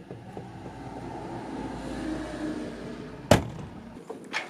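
A motor vehicle going by, its noise swelling and then fading, followed by a single loud knock a little past three seconds in.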